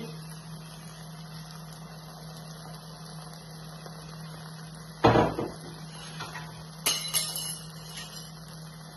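Kitchen handling noise at an electric tabletop grill: a single loud knock about five seconds in, then a short run of light clinks about two seconds later, over a steady low hum.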